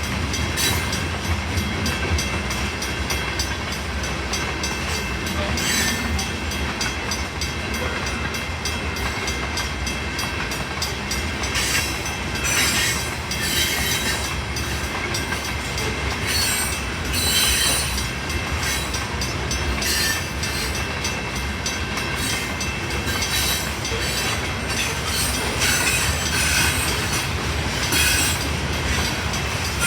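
Freight cars rolling past steadily, wheels clacking over the rail joints, with a few brief wheel squeals.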